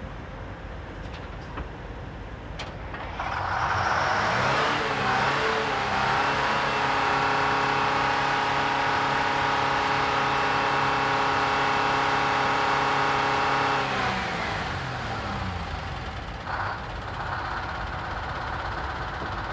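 Detroit Diesel bus engine running after being reprimed from running out of fuel: it revs up a few seconds in, is held at high revs for about eight seconds, then drops back down to a steady idle.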